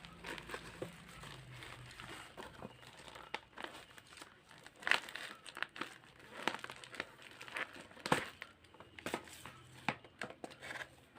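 Product packaging being opened and handled: irregular crinkling and crackling with scattered sharp clicks, the loudest about five and eight seconds in.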